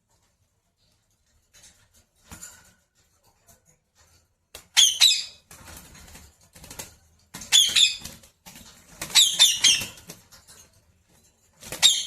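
Pet parrot calling in short bursts of rapid, shrill chatter, about four bursts spaced a couple of seconds apart after a quiet start.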